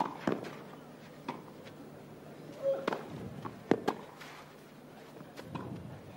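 Tennis ball hit back and forth in a clay-court rally: a series of sharp racket strikes at uneven intervals, the loudest nearly four seconds in, over faint crowd noise.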